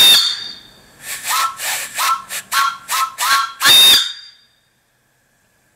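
Antique brass three-chime steam whistle on a fire-tube boiler, blown by a pull cord. It gives a quick string of short toots and ends with a longer, loud blast about four seconds in, several notes sounding together as a chord.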